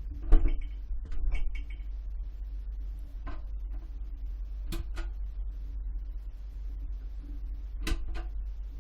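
Irregular clinks and knocks, about seven, some ringing briefly, over a steady low hum, heard from a phone sitting inside a dishwasher: dishes and racks being moved.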